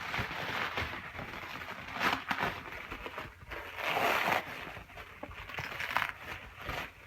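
Rustling and crinkling of packaging being unwrapped by hand, coming in several irregular bursts.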